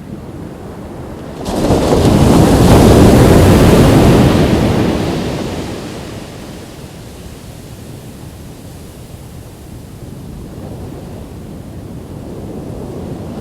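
Ocean waves on a beach: a wave breaks about a second and a half in and washes up loudly for a few seconds before easing back to a steady surf wash, with another wave building near the end. Wind buffets the microphone.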